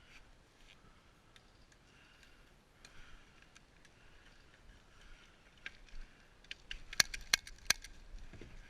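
Airsoft gun firing three quick, sharp shots about a third of a second apart near the end, after a stretch of faint scattered ticks and clicks.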